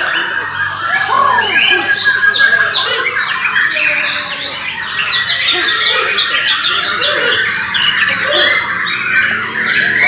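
A white-crowned shama (murai batu Borneo) singing in its contest cage over a dense chorus of other caged songbirds. The song is a rapid, unbroken run of overlapping whistled and chattering notes, with a long held whistle in the first few seconds.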